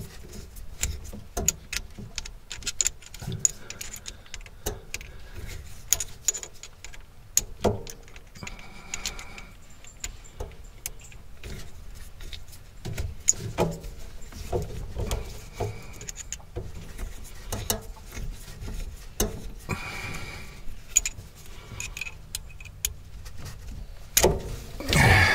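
Scattered small clicks, taps and rustles of hands fitting parts onto a faucet's braided pull-down spray hose.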